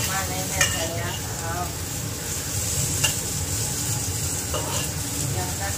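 Sliced chilies, shallots and garlic sizzling in hot oil in a wok while a metal spatula stirs and scrapes them. A couple of sharp clinks of the spatula against the wok come about half a second and three seconds in.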